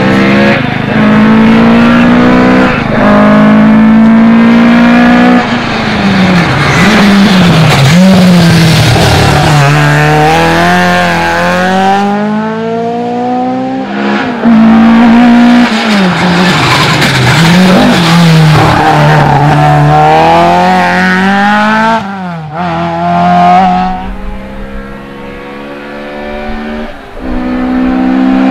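Toyota Celica RA40 rally car's engine revving hard on a rally stage. Its pitch climbs and then drops sharply again and again as it shifts gear and lifts off. Near the end it goes quieter for a few seconds, then revs back up.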